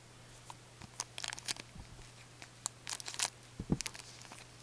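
Trading cards being handled and flipped by gloved hands: crisp rustling and clicking in two short clusters, with a dull thump near the end.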